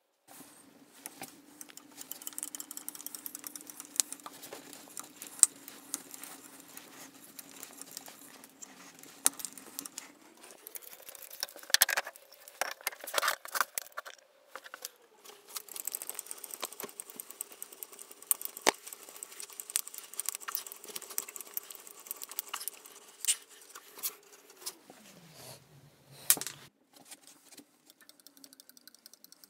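Irregular clicks, scrapes and rattles from woodworking hand tools being handled and used on a wooden workbench, including a hand brace with an auger bit. A faint steady hum runs underneath, rising in pitch about ten seconds in, dropping twice later and cutting off shortly before the end.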